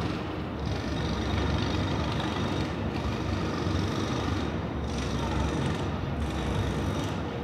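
Steady city background rumble: traffic and urban machinery noise, heaviest in the low end, with no single event standing out.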